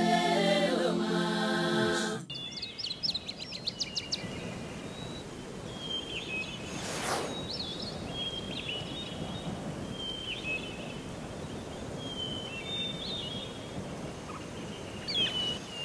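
Music cuts off about two seconds in and gives way to outdoor birdsong: first a quick rattling run of calls, then short high chirps repeating every second or two over a faint steady background, with a brief whoosh about seven seconds in.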